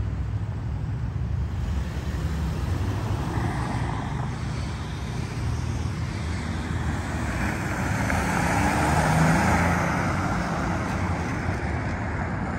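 Road traffic noise: a steady low rumble, with a car passing that grows louder and peaks about nine seconds in before fading.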